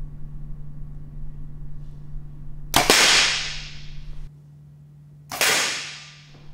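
A compound bow shot with a broadhead-tipped arrow slamming into a 17-gauge steel plate: a sudden loud crack followed by a long echo in a big open space. The crack is heard twice, about two and a half seconds apart.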